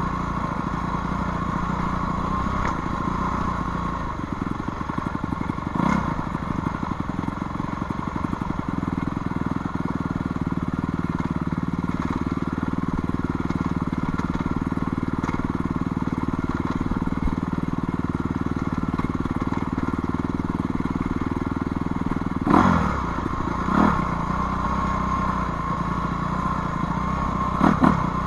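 Dirt bike engine running steadily while riding a rough trail, its pitch shifting a little with the throttle, with a few sharp knocks, the loudest near the end.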